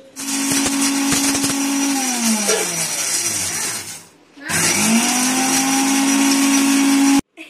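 Electric mixer grinder grinding black pepper, cumin, green chillies and curry leaves in pulses. The motor runs at a steady whine, is switched off about two seconds in and winds down with falling pitch. Past the middle it is switched on again, spins up to the same whine and cuts off abruptly near the end.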